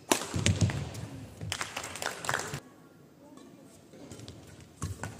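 Badminton rally: a racket smashes the shuttlecock hard at the start, and sharp racket hits follow. Court shoes squeak and thud on the court floor between the shots.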